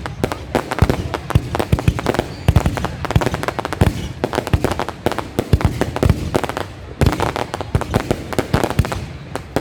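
Aerial fireworks display going off, a dense run of bangs and crackles fired in quick irregular succession, with the low booms of shells bursting overhead.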